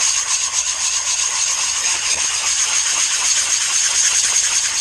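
Sanding with 80-grit abrasive, a loud steady scratchy hiss with a thin high whine running through it.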